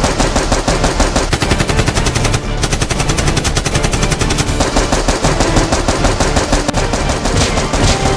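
Rapid, continuous machine-gun fire, a dense unbroken stream of shots, dubbed in as a sound effect over a Nerf-gun fight.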